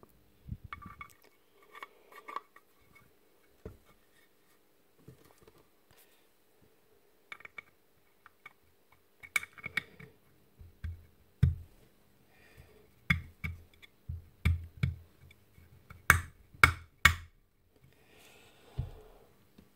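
Clicks and knocks of a magnetic drill's aluminium gearbox housing and gear being handled on a workbench. They are sparse at first and come louder and closer together in the second half, the loudest three close together about three-quarters of the way through.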